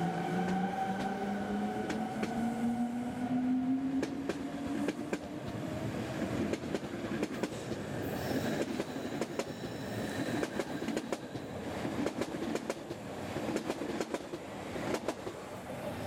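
Rhätische Bahn electric locomotive and coaches pulling away past a platform. A whine from the locomotive's drive rises in pitch as it accelerates and fades out over the first few seconds, then the wheels of the passing coaches clatter and click over the rail joints, dying away near the end.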